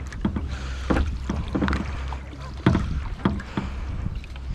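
Irregular knocks and handling sounds on a kayak, with a steady low rumble of wind on the microphone.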